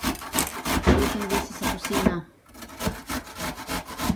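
Garlic cloves being grated by hand on a metal box grater: quick rasping strokes, about five a second, with a brief pause about two seconds in.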